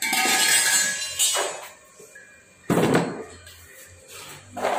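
Stick-welding arc from an inverter welder at 60 A with an E6013 rod being struck against steel pipe. It crackles in sudden short bursts: about a second at the start, then shorter bursts in the middle and near the end, as the rod is scratched and tapped to get the arc going.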